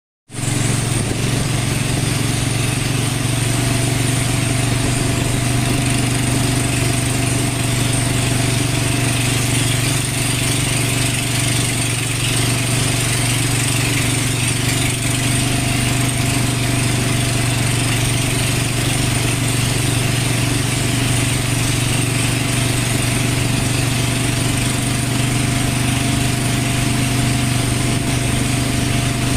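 A small wooden boat's motor running steadily, holding an even pitch throughout.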